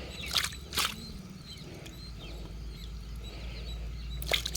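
Faint bird chirps over a low steady outdoor background, with a few short sharp knocks or splashes about half a second in and near the end.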